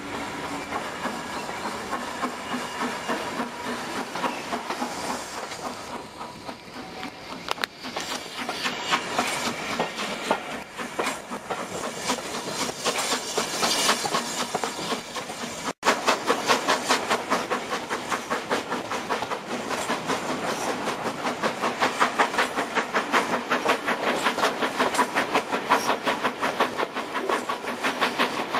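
Steam locomotive pulling a train away, its exhaust beating in a steady rhythm that grows louder and quicker in the second half, with coach wheels clicking over the rail joints, heard from an open carriage window. The sound cuts out for an instant about halfway through.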